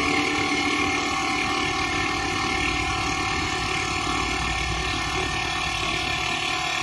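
CNC wood lathe running while it turns a wooden spindle: the motors give a steady whine of several fixed tones over an even hiss of the cutter taking wood off the spinning blank.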